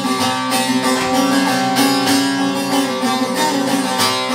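Saz (long-necked lute) strummed with a plectrum in a quick, rhythmic instrumental passage, its strings ringing on over a steady drone.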